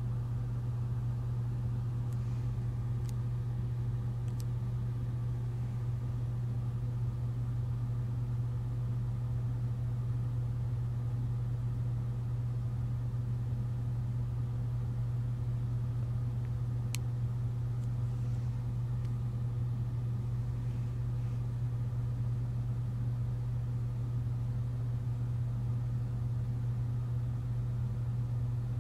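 Steady low mechanical or electrical hum at an even level, with one faint click about 17 seconds in.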